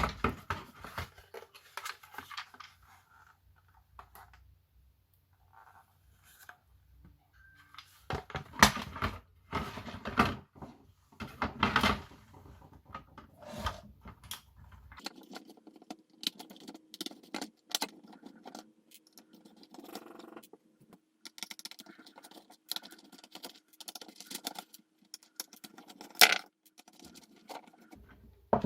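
Irregular clicks, taps and rattles of a plastic landline telephone's casing and internal parts being handled during disassembly, with a few louder knocks.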